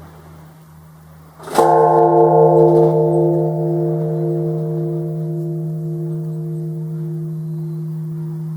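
Japanese temple bell (bonshō) struck once by an automatic bell-striking machine about a second and a half in, then ringing on with several steady tones that fade slowly. A low hum is already sounding before the strike.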